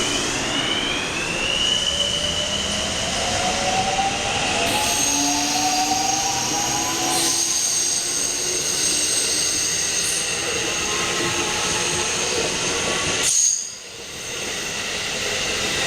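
Electric train running along the platform with the motor whine rising in pitch as it accelerates, over steady wheel and rail noise. The sound drops out suddenly near the end, then comes back.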